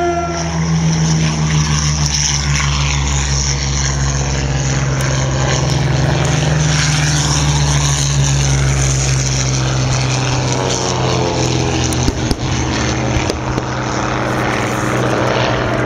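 Propeller aircraft engines running steadily with a deep hum, as WW2-era aircraft start up for a scramble. A second engine note rises from about ten seconds in. An air-raid siren winds down at the very start.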